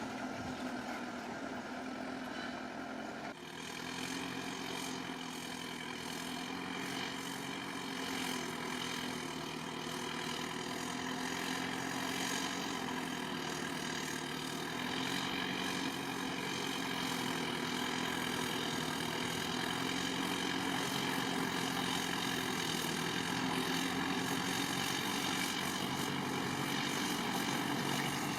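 Bulldozer's diesel engine running steadily while working, its pitch wandering a little with load, with an abrupt change in the sound about three seconds in.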